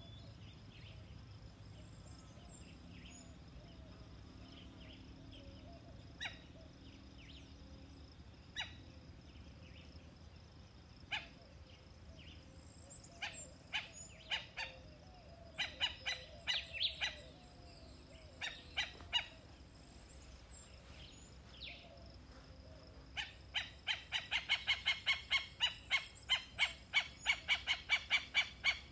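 A bird calling: scattered sharp calls, then in the last six seconds a fast, even run of about three calls a second.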